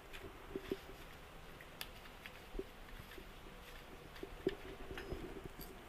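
Scattered light clicks and taps of hand tools and bolts being worked on the engine cases, as case bolts are fitted one by one.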